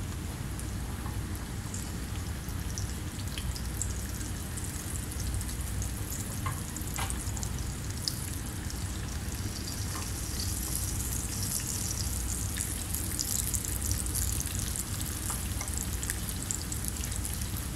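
Tilapia fillets shallow-frying skin-side down in oil heated to its smoking point, with a little garlic: a steady sizzle and crackle that gets busier about halfway through, with a few faint clicks.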